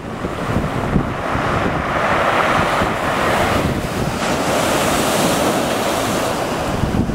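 Ocean surf breaking and washing up a sand-and-pebble beach, the hiss swelling about two seconds in and again around five seconds, with wind rumbling on the microphone.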